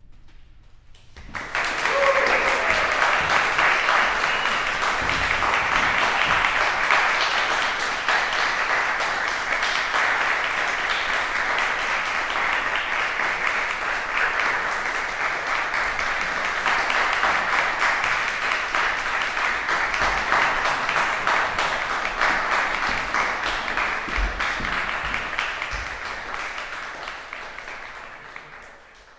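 Audience applauding, starting about a second in, holding steady, and fading out near the end.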